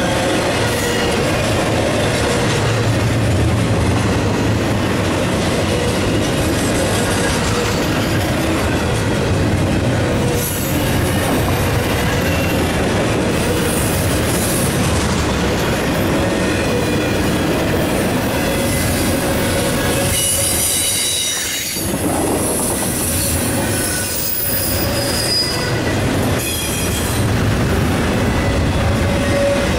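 Double-stack intermodal well cars of a freight train rolling past: a steady, loud rumble and clatter of steel wheels on rail, with high wheel squeal coming and going. The sound dips briefly about two-thirds of the way through.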